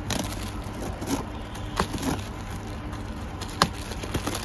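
Plastic stretch wrap around a taped cardboard parcel crinkling and crackling as fingers pick and tear at it, with several sharp snaps, the sharpest about three and a half seconds in.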